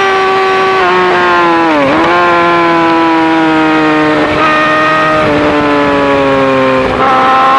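Yamaha R6 sportbike's inline-four engine running at high revs through an Akrapovic full-system exhaust. It dips sharply and recovers about two seconds in, then slowly falls in pitch, with small steps along the way.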